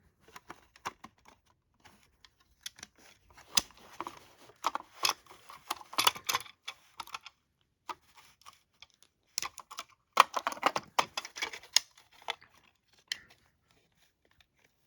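Clicking, rattling and scraping of a plastic 1986 Jameson Code 1 smoke alarm being handled to get its battery out, in two busy stretches, the second starting about ten seconds in. No alarm tone sounds.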